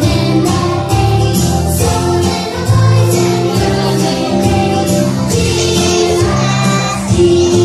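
A group of children singing a Christmas song together over backing music with a steady beat.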